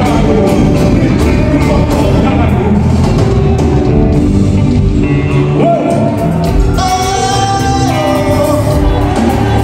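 Live band music with singing, played loud through a hall's sound system. About six seconds in, a voice slides up into a long held note.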